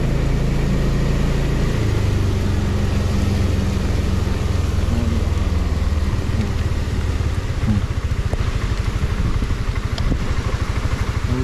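Suzuki Burgman 400 single-cylinder scooter riding along, a steady low engine drone with wind rumble on the microphone. About seven seconds in, the steady drone gives way to a rapid fluttering pulse.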